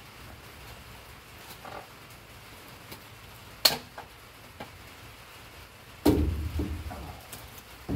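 Metal tent-frame poles being handled as the frame is taken apart: a single sharp clank a little after three and a half seconds, then a louder rattling clatter of metal at about six seconds that lasts about a second, and another starting at the very end.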